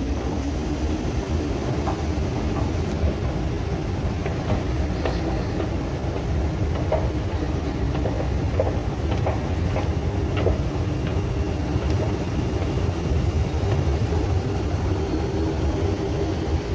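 Steady low rumble and hum of a metro station, with a few light clicks in the middle.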